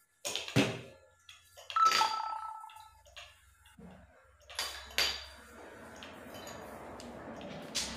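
Clicks, taps and light knocks of hard plastic and metal as a smartphone's display and board assembly is handled and reseated with small tools. About two seconds in, one clink rings briefly. A faint steady noise runs through the last few seconds.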